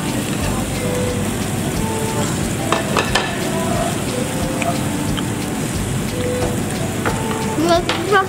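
Meat sizzling on a tabletop yakiniku grill, a steady crackling hiss. A few light clicks come about three seconds in, and a voice rises briefly near the end.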